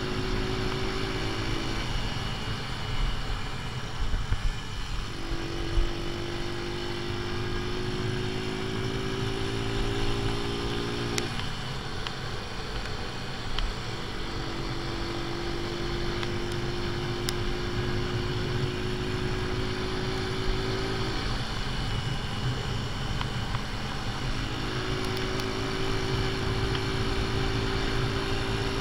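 AJS Tempest Scrambler's single-cylinder four-stroke engine running under way on a road ride, with its ignition timing set half advanced. Its note climbs slowly in pitch over stretches of several seconds and breaks off three times, over a steady low rumble of wind on the microphone.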